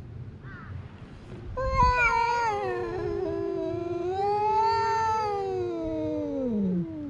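Cat yowling in a long, drawn-out caterwaul at another cat, a territorial threat call in a standoff before a fight. The pitch wavers through the call and slides down low at the end, after a brief short call a second before it starts.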